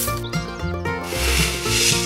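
Background music: melodic notes over a stepping bass line, with a swishing noise that swells near the end.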